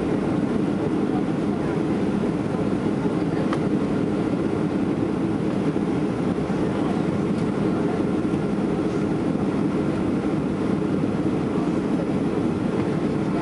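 Steady low rush of engine and airflow noise inside the passenger cabin of a Boeing 737-800 descending on approach to land.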